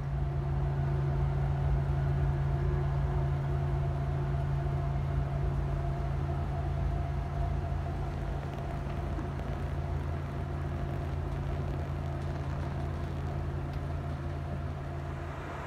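Steady low hum and rumble inside an ÖBB Nightjet sleeping-car cabin, the car's own running and equipment noise, with a constant low drone and no change throughout.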